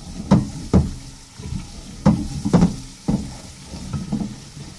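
Wooden spatula stirring and scraping chicken and tomato masala in an aluminium pot, knocking against the pot about six times at irregular intervals, over a steady sizzle of frying in oil. This is the bhuna stage, with the tomatoes being fried down with the chicken.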